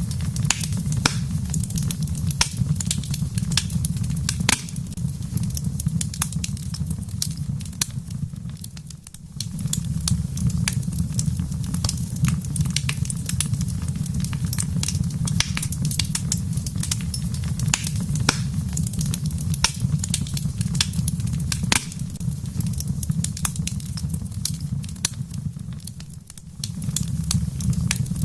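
Wood fire crackling, with frequent sharp pops and snaps over a steady low rumble. The rumble briefly drops away twice, once about nine seconds in and again near the end.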